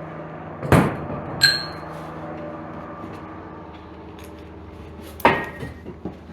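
Three sharp metal clanks: about three-quarters of a second in, again half a second later with a brief ringing tone, and once more near the end. They sound as heavy steel pieces are handled. A steady low hum runs underneath.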